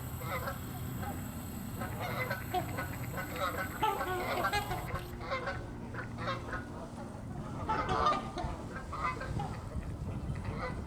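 A flock of waterfowl honking, many short calls overlapping one another.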